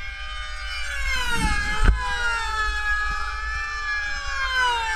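Several Q500 pylon racers' model glow engines running flat out at once, their high whines at different pitches gliding and dropping as the planes pass. A sharp knock about two seconds in.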